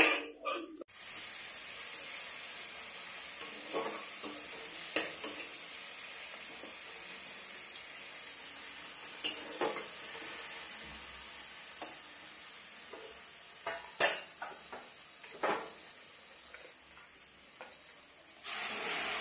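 Tadka of onion, garlic, tomato and dried red chillies sizzling steadily in oil in a kadhai, stirred with a metal spatula that scrapes and clicks against the pan every few seconds. Near the end it gets suddenly louder as cooked dal is poured in from a pressure cooker.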